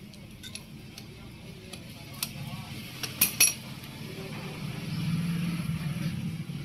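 Steel T-wrench and exhaust-pipe mounting bolts clinking as the rusted bolts are worked loose: a few light clicks, then two sharp metallic clinks about halfway through. A low hum swells near the end.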